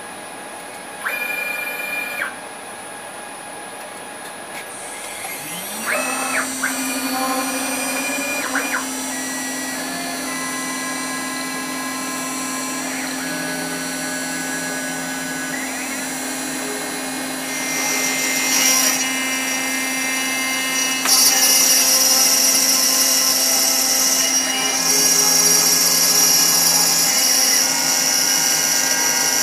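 A 6040 CNC router's spindle spins up about five seconds in and settles to a steady hum at 15,000 RPM, with the stepper motors whining as the gantry moves. From about 18 seconds a louder high hiss and screech builds as the single-flute carbide end mill cuts into the bronze at a reduced 25 inches a minute and 15 thou depth of cut.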